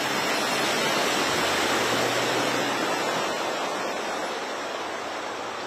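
A pickup truck ploughing through shallow floodwater: a steady rush of churning, splashing water that slowly fades, with a low engine hum under it for the first three seconds or so.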